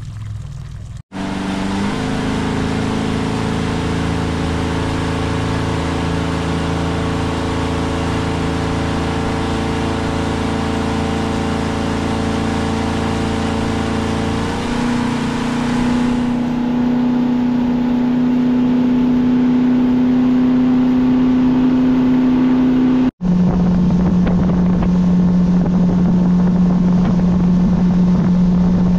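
A 150-horsepower outboard motor driving a fishing boat at speed. It runs with a steady hum over a hiss of wind and water, and the engine note steps higher about halfway through. The sound cuts out briefly twice, and after the second break the note is lower and steady.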